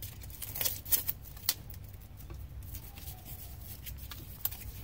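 Hands handling the string of nickel-cadmium cells from a dismantled 12-volt drill battery pack: a few scattered sharp clicks and light rustles over a low steady hum.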